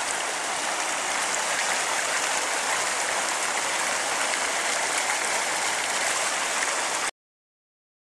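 Water of a small waterfall pouring over a concrete weir edge, a steady rushing hiss; it cuts off suddenly about seven seconds in.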